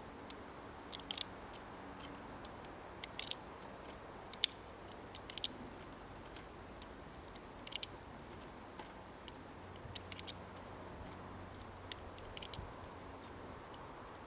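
A dozen or so small, sharp metallic clicks at uneven intervals, one louder snap near the middle: 9 mm cartridges being pressed one by one into the Arsenal Firearms Strike One pistol's magazine.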